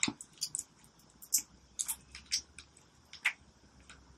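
Soft, irregular crackles and small ticks of thin protective plastic film being picked at and peeled off a small doll's limbs by hand.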